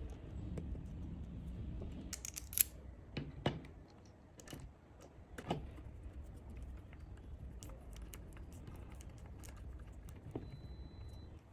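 Small metal parts clicking and clinking as they are handled and fitted, a handful of sharper clicks in the first half and fainter ticks after, over a low steady hum.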